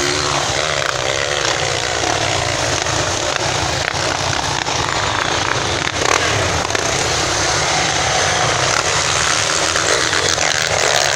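Off-road motorcycle engines running and revving, their pitch wavering up and down, over a steady loud rush of noise.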